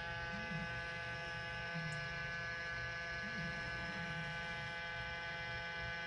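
Handheld ultrasonic nebulizer running with a steady electric hum made of several even tones.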